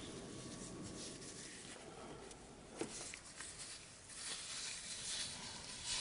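Gloved hands handling gingerbread dough and a scalloped tin cookie cutter on a floured wooden board: faint rubbing and scraping, a light tap about three seconds in, and a louder scrape over the last two seconds.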